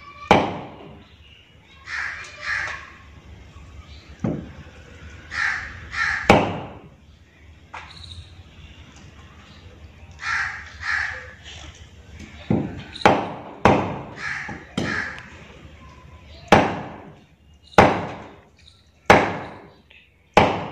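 Heavy cleaver chopping cow trotter bones on a wooden log block: about a dozen sharp chops at irregular intervals, coming quicker in the second half. Repeated cawing bird calls sound between the strokes.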